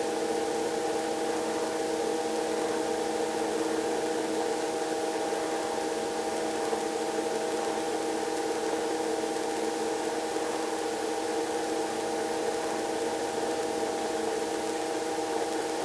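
Robinson R22 helicopter in flight, heard from inside the cabin: a steady drone of engine and rotor with a cluster of steady mid-pitched tones over a hiss.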